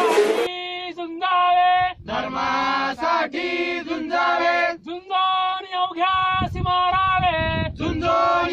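A group of men chanting a devotional prayer in unison, in long held notes and phrases with short breaths between them. A few instrumental notes cut off about half a second in.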